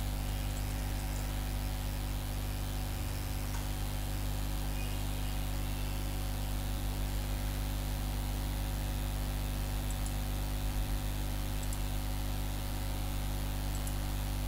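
Steady electrical hum with an even hiss: the background noise of the recording, with no other sound.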